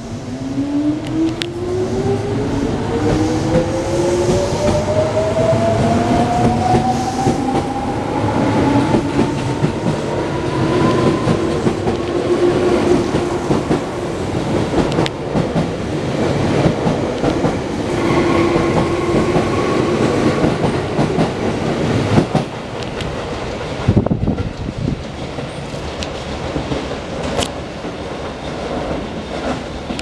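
Tobu 9000 series ten-car electric train pulling away from a station platform. The traction motor whine rises steadily in pitch over the first twelve seconds or so as the train accelerates, over the rumble of the wheels on the rails. Sharp clacks of the wheels over rail joints come as the last cars pass, and then the sound eases off.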